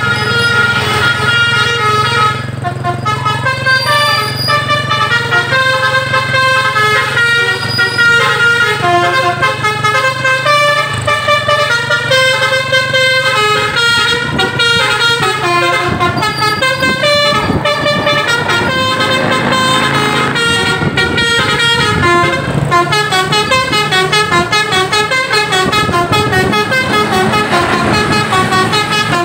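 Basuri-type telolet air horn on a bus playing a tune of quick, changing notes without a break, with the vehicle's engine running low underneath.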